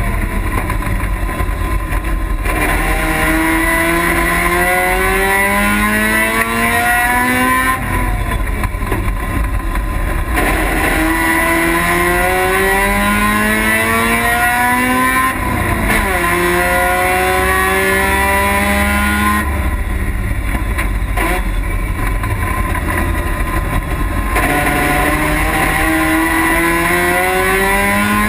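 Race car engine heard from inside the cabin, run hard through the gears. Its pitch climbs in each gear and drops back at each upshift. Twice, about eight and about twenty seconds in, the note falls away for a few seconds as the driver lifts off, before it climbs again.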